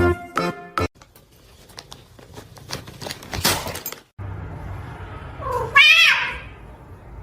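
A cat meows once, loudly, about six seconds in, the call rising and then falling. Before it come scattered clicks and a brief rushing noise.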